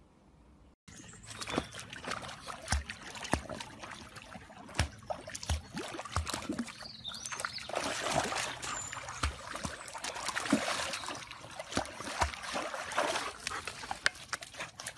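Water splashing and sloshing as a pug wades and paddles through a shallow muddy pool, with irregular splashes and knocks. It starts about a second in.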